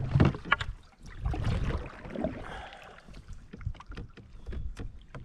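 Canoe on open water: paddle strokes and water splashing and lapping against the hull, with scattered small knocks and drips and a low wind rumble on the microphone.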